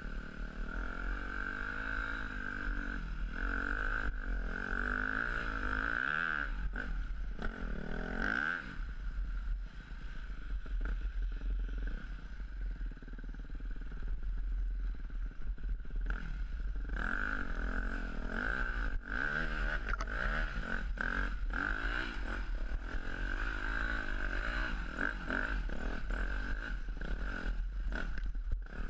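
Yamaha dirt bike's engine running under a rider on a rough trail, its pitch rising and falling as the throttle opens and closes, quieter for several seconds in the middle. A steady high whine runs under it, with scattered knocks and rattles.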